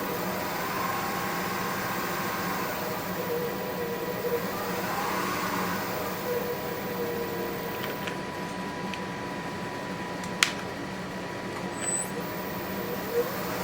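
Powermatic 3520C wood lathe running: a steady motor whine with a tone that glides up and then back down in pitch a few times as the spindle speed is changed. A sharp click comes about ten seconds in.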